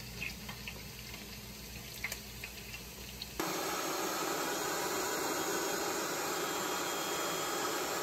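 Electric food processor running, its blade chopping onion and red bell peppers: an even, steady whirring noise that starts suddenly about three and a half seconds in. Before it, only a faint low hum and a few light clicks.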